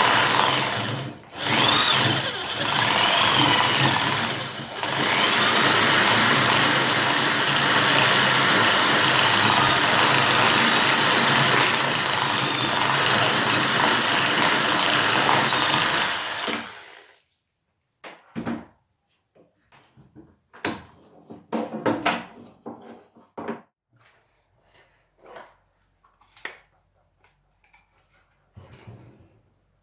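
An electric power tool running on wood, loud and steady for about sixteen seconds, with short dips near the start, then switched off. After it stops come scattered light knocks and clicks.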